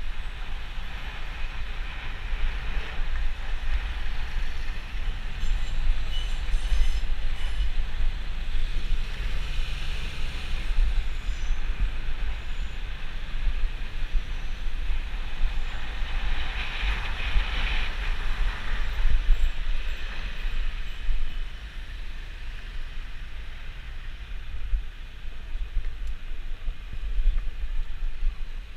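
Riding noise from a bicycle in city traffic: wind rumbling steadily on the microphone over a continuous hiss of tyres and passing vehicles.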